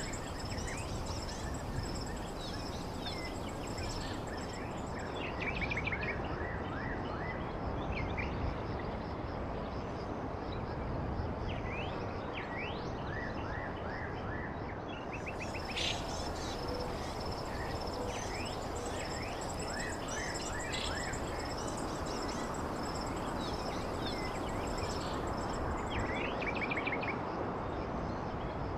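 Outdoor ambience: many short bird chirps over a steady high insect drone and a constant noisy background hiss.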